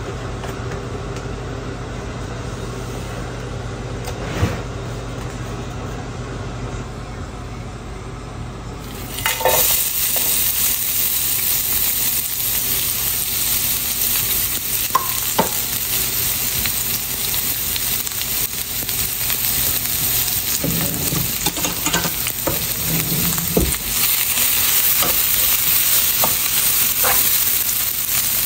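Sliced shallots, julienned ginger and dried red chilies frying in hot oil in a non-stick pan. A loud sizzle starts suddenly about nine seconds in as they hit the oil and continues steadily, with a few light knocks of a utensil against the pan. Before that there is only a low steady hum.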